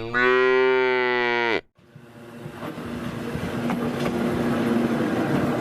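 Railcar horn sounding one blast of about a second and a half, dropping in pitch as it cuts off, then the running sound of a Hakone Tozan Moha 1 electric railcar building up as it gets under way, with occasional clicks of wheels over rail joints.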